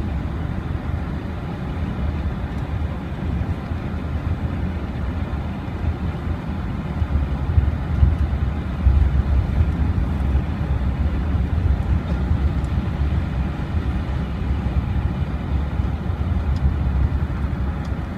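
Road noise inside a moving car: a steady low rumble of tyres and engine heard through the cabin.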